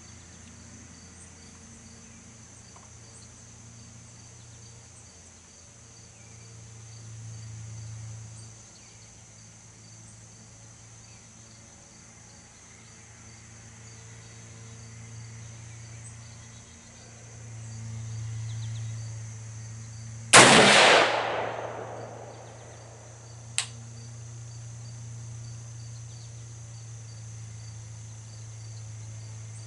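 A single shot from a Daniel Defense Mk12 rifle in 5.56 NATO, about two-thirds of the way in, ringing out for a second or so, followed about three seconds later by one short sharp click. Crickets chirp steadily throughout.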